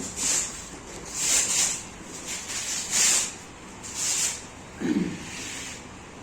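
A person breathing hard in short, sharp hissing breaths, about five of them roughly a second apart, with a brief low voice sound near the end.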